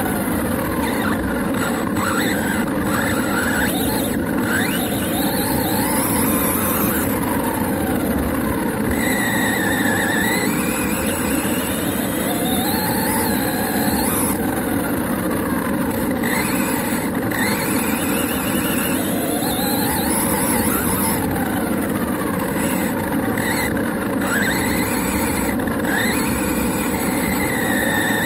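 HSP radio-controlled truck driving over grass, heard from a camera on its own chassis: a steady rattling rumble from the chassis and tyres, with the motor and gear whine rising and falling in pitch again and again as the throttle changes.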